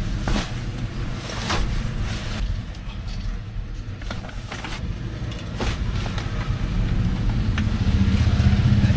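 A motor vehicle engine running with road noise while driving, growing louder over the last couple of seconds, with a few sharp knocks.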